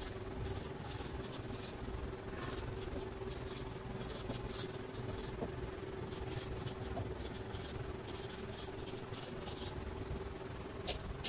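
Felt-tip permanent marker writing on paper: a run of short scratchy strokes, one per letter stroke, over a faint steady hum.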